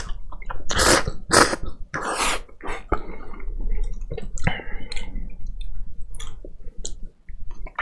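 A person slurping instant cup noodles: a few loud, hissing slurps in the first two and a half seconds, then quieter chewing and mouth noises with a few short clicks.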